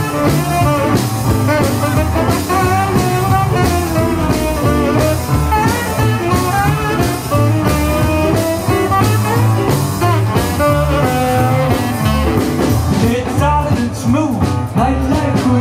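A live jump-blues band plays an instrumental passage: a saxophone carries a wavering lead line over electric guitar, upright bass and a steady drum beat. The cymbals ease off near the end.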